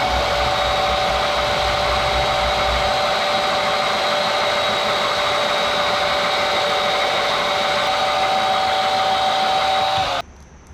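An electric motor coming up to full speed and running steadily with a high whine, then switching off suddenly near the end.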